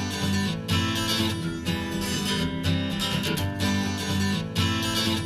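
Music: the instrumental opening of an acoustic song, with strummed acoustic guitar.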